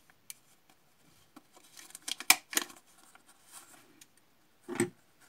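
Small handheld stapler punching a staple through pleated paper: a few sharp clicks about two seconds in, the loudest a crisp snap. A duller knock follows near the end.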